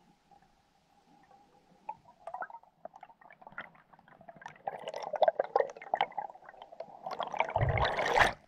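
Underwater bubbling and crackling that grows louder over several seconds, ending in a loud, deep rush of air bubbles for about a second near the end that cuts off suddenly.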